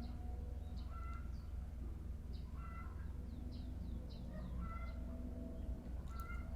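Repeated short, high-pitched animal calls, about one or two a second, some as falling chirps, over a steady low hum.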